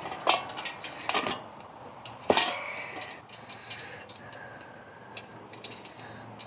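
Metal parts of a ceiling fan clinking and knocking as it is taken apart, with a sharper metallic strike about two seconds in that rings briefly.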